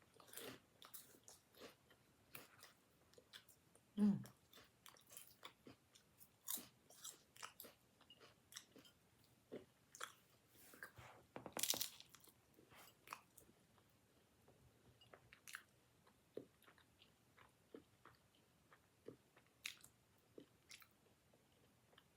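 A person chewing a bite of flaky baklava: soft, irregular crunches and mouth clicks, with one louder crunch a little past halfway. A short "mm" of approval about four seconds in.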